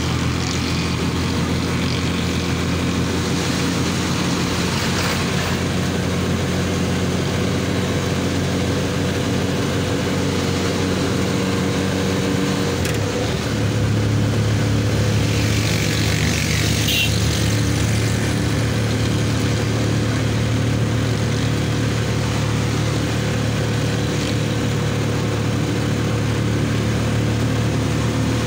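Engine of a moving road vehicle heard from on board, running steadily with road noise. Its note changes and gets a little louder about thirteen seconds in.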